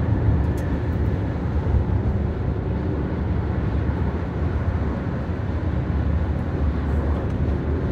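Steady road and engine noise heard inside a car's cabin while driving at highway speed.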